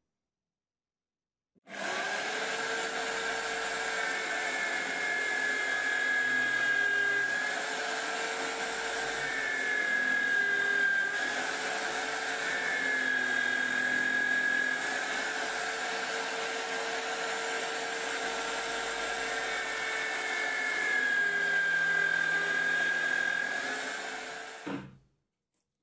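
Homemade drill press running and drilling holes through a wooden push-block base. The motor starts about two seconds in and runs steadily, its pitch sagging briefly several times as the bit cuts in, then it switches off and winds down near the end.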